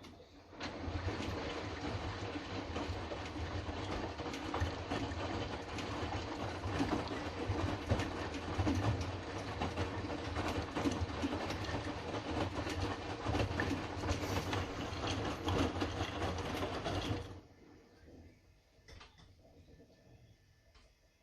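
Hotpoint Fastwash 60 washing machine in its main wash: the motor turns the drum, with a low hum and the busy churning clatter of the wash load, starting half a second in. After about seventeen seconds it stops suddenly as the drum pauses in its tumble cycle, leaving a few faint clicks.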